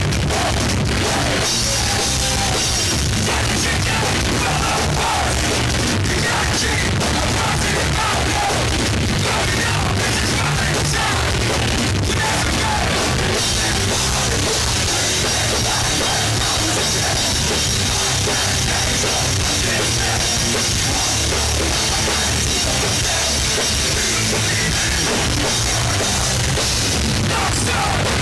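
Hardcore punk band playing live: distorted electric guitars and drums at a constant high level.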